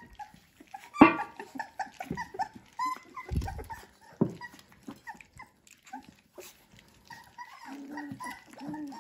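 Young Dalmatian puppies whimpering and squeaking with many short high cries while they feed together at a steel bowl, with a sharp knock about a second in and lower little whines near the end.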